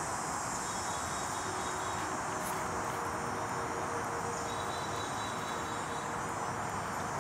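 Steady outdoor summer ambience: a continuous high insect drone, such as crickets or cicadas, over an even hiss, with no breaks or single events.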